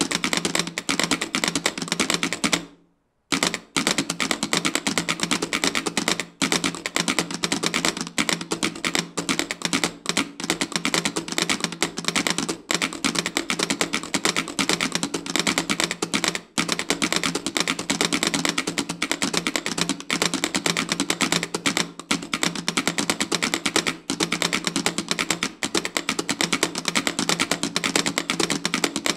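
A bank of six Morse telegraph keys clicking rapidly as their levers tap out Morse code, many clicks overlapping in a dense, continuous clatter. It breaks off into silence briefly about three seconds in, then carries on.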